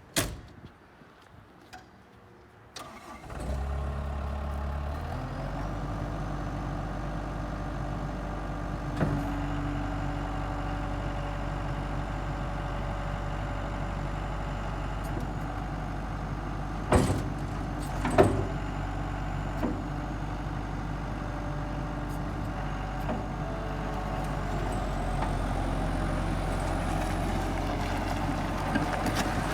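Gehl CTL70 compact track loader's diesel engine starting about three seconds in after a sharp knock at the very start. It runs a little faster for its first couple of seconds, then settles to a steady idle. A few sharp knocks come over the idle, and the engine speed rises slightly near the end.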